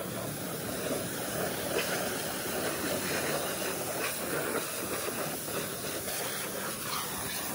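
High-pressure washer jet spraying water onto a motorcycle's engine, wheel and the wet ground, a steady rush of spray with no breaks.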